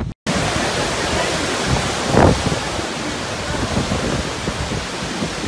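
Hurricane wind rushing steadily and buffeting the microphone, with one brief louder gust about two seconds in.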